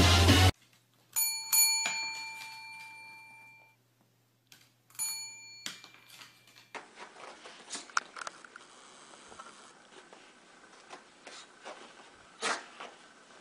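A metal desk bell (service bell) is struck twice in quick succession by a dog and rings out for about two seconds, then is struck once more about five seconds in. A short tail of rock music is heard at the very start, and after the bell only faint soft taps and one louder knock near the end.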